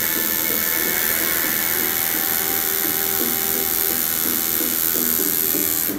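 Tattoo machine running steadily as the needle works into skin.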